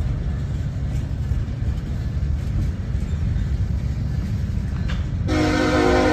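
Freight train tank cars rolling past with a steady low rumble of wheels on rail. About five seconds in, a train horn starts suddenly, holding a multi-note chord.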